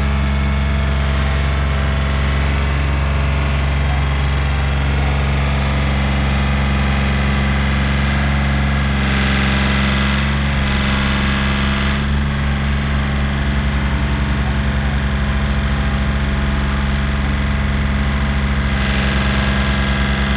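An engine idling steadily, with a slight pulsing beat in its low note during the last third.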